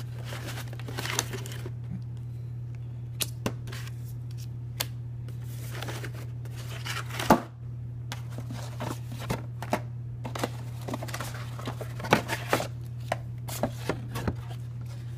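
Cardboard miniatures box and its packaging being handled and opened on a tabletop: scattered taps, scrapes and rustles, with one louder knock about seven seconds in and a burst of clicks around twelve seconds. A steady low hum runs underneath.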